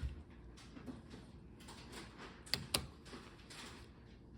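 Light plastic clicks and knocks of Rubik's cubes being handled and set down, with two sharper clicks a little past halfway.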